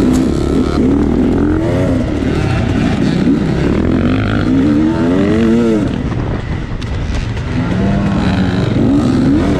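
Off-road motorcycle engines in a hare scramble, revving up and dropping back over and over, several at once at different pitches.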